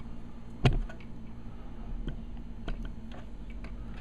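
Small clicks and taps from desoldering work on a TV power-supply circuit board, as the soldering iron and copper solder wick are handled against it: one sharper knock just under a second in, then a few faint ticks, over a low steady hum.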